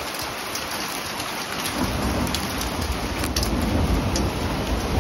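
Steady rain falling, with a low rumble of thunder building from about two seconds in and rolling on.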